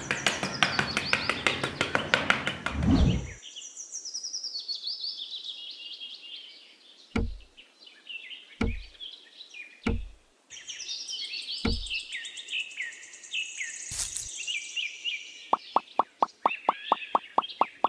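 A small metal garden trowel scraping across sand in quick strokes, then birds chirping with five separate sharp knocks as miniature clay brick wall panels are set down, and a rapid even ticking near the end.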